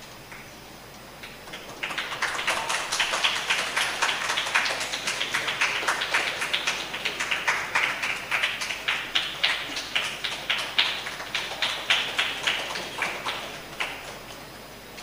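A small group clapping hands. It starts about two seconds in, holds as a dense patter of individual claps, and thins out near the end.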